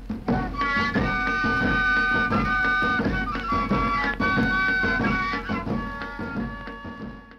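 Traditional folk music: a flute-like wind instrument playing long held notes over quick drumming, fading out near the end.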